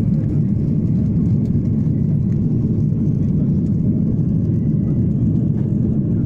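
Steady low rumble of a Boeing 737 airliner's jet engines and rushing air, heard inside the passenger cabin during the climb just after takeoff.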